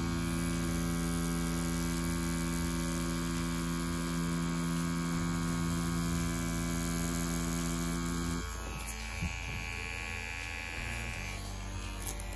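CNC WE wireless pen-style rotary tattoo machine running continuously with a steady electric hum as it pulls lines in practice skin. The hum stops about eight and a half seconds in.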